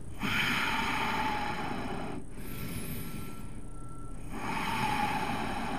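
A person breathing slowly and deeply: two long breaths of about two seconds each, the second starting about four and a half seconds in, over a steady low rumble.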